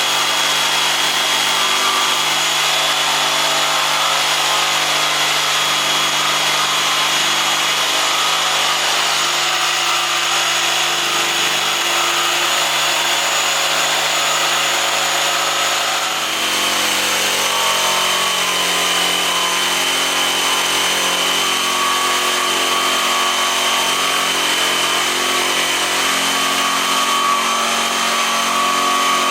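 Electric power saw running steadily as it cuts through a wooden tabletop along a marked line, its pitch shifting about halfway through.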